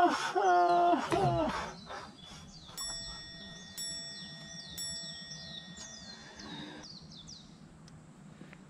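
A man's drawn-out yell that breaks off about a second in, followed by three ringing chime strikes about a second apart, with birds chirping faintly in the background.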